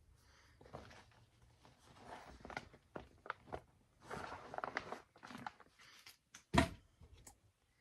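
Handling noises as cross-stitch projects are moved: rustling and light irregular clicks, with one louder knock about six and a half seconds in.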